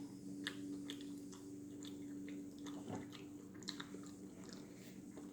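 Close-up mouth sounds of a person chewing a bite of a Cheetos-crusted chicken sandwich: irregular wet smacks and crisp crunching clicks. A steady low hum runs underneath.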